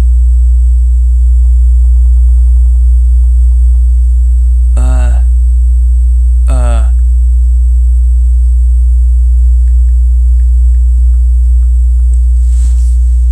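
Subwoofer putting out a loud, steady low bass hum, with two short sweeping pitched sounds over it about five and six and a half seconds in.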